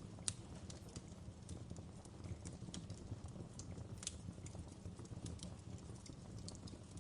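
Wood fire crackling in a fireplace: a faint, steady low rumble of flames with scattered sharp pops and snaps. The loudest pop comes just after the start and another strong one about four seconds in.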